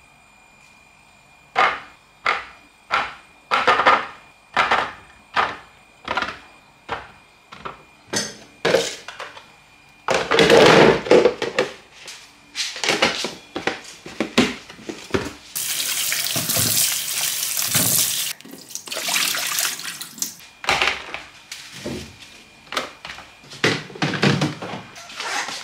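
Kitchen prep: a knife trims small zucchini, and each one is dropped into a clear plastic storage box with a sharp knock, about every two-thirds of a second. Then the box and its lid clatter as they are handled, with a few seconds of rushing hiss. Near the end come more knocks of plastic boxes being set onto a fridge shelf.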